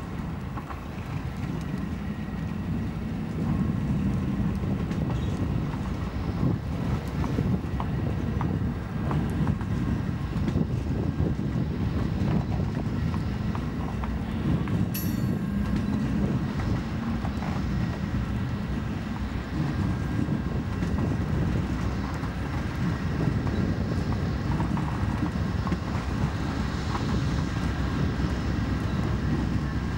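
A slow-moving train rolls past: steel wheels run over the rail with scattered clicks and a faint squeal, and diesel locomotive engines run underneath. The rumble grows louder over the first few seconds, and a single sharp metallic clank rings out about halfway through.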